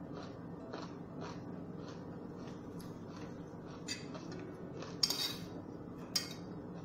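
Metal spoon scraping and clinking against a ceramic plate of rice, a few sharp clinks in the second half, the loudest about five seconds in. Soft chewing at about two a second before that, over a low steady hum.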